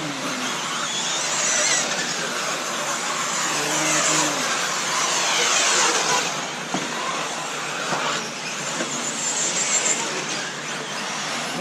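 Several electric RC off-road buggies racing on a dirt track, their motors whining and gliding up and down in pitch as they accelerate and brake, several at once.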